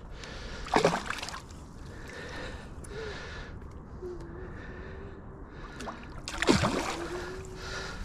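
Water splashing as a giant carp, barely pinned on a bowfishing arrow, thrashes at the surface. There is a short splash about a second in and the loudest splash near the end.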